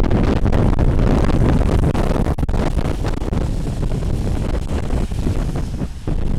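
Strong wind gusting over the microphone: a loud, irregular rumbling buffet, heaviest in the first two seconds and easing slightly after.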